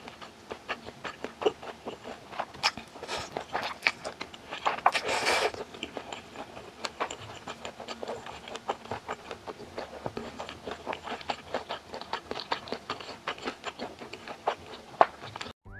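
Close-up eating sounds of someone chewing a mouthful of japchae glass noodles with rice: a steady run of wet mouth clicks and smacks. There is one longer, breathier sound about five seconds in.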